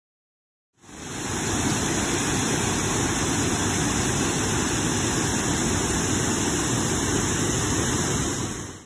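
Waterfall: the steady rush of water pouring over rock, fading in about a second in and stopping just before the end.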